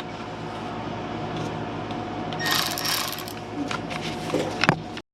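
A steady mechanical hum, with a short hiss about two and a half seconds in and a few sharp clicks near the end; the sound then cuts off abruptly.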